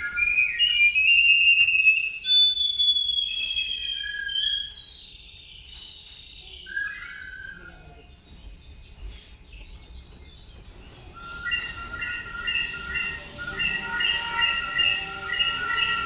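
Recorder imitating birdsong: high chirps and gliding, warbling whistled notes, then a quieter stretch, then a quickly repeated pulsing call near the end.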